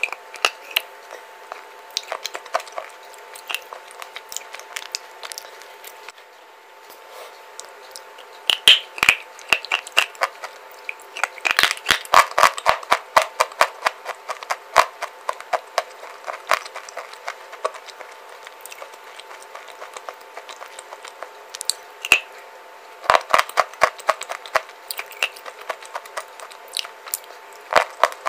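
Close-miked crunching and chewing of edible baked clay bars being bitten and ground between the teeth, a run of crisp cracks and crackles. The crunching comes thickest in two bursts, about twelve seconds in and again about twenty-three seconds in, over a faint steady hum.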